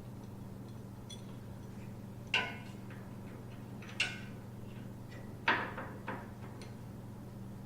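Three sharp metal clinks about a second and a half apart, with a smaller one after the last, as the steel floorboard bracket and its bolts are handled and set against the motorcycle; a steady low hum runs underneath.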